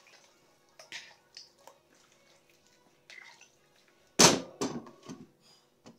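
Hands mixing raw pork chops with spices in a plastic bowl: a few soft wet squelches and clicks, then a loud knock a little past four seconds in, followed by several lighter knocks.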